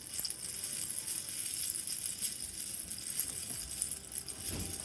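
A bundle of tiny dried seed-pod rattles shaken and rubbed between cupped hands: a steady, delicate, high rattle of many small pods clicking together, like a rain stick. A soft low bump comes just before the end.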